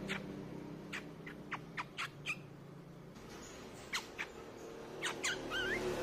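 Streak-eared bulbul calling: a string of short, sharp down-slurred notes, then a brief wavering warble near the end.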